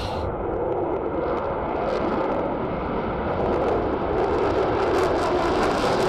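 F-22 Raptor's twin F119 turbofan engines in afterburner during a takeoff climb: a steady rushing jet noise that grows slowly louder toward the end.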